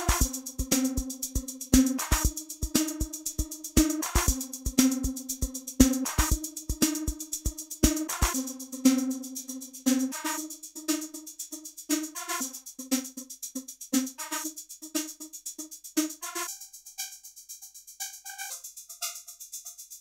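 A drum-machine loop played through Ableton Live 11's Spectral Resonator, so the hits ring out as pitched tones that follow a MIDI bass line. The low kick thumps stop about eight seconds in, and near the end the resonance shifts to sparser, higher chord tones.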